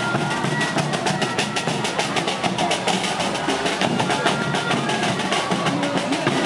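Marching band of carried drums in an Andean carnival dance troupe, beaten in a fast, steady rhythm, with a few short high notes above the beat.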